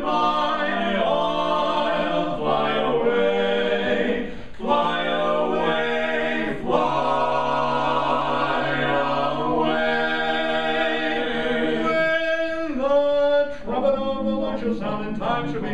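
Male vocal quartet singing gospel a cappella in close four-part harmony, holding long chords. A little past twelve seconds in, the harmony thins to a single voice for a moment before the others come back in.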